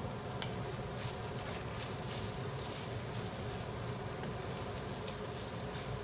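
Burong nasi (rice seasoned with tamarind soup mix) sizzling in a nonstick frying pan as it is stirred with a wooden spatula, with light scrapes and taps of the spatula against the pan.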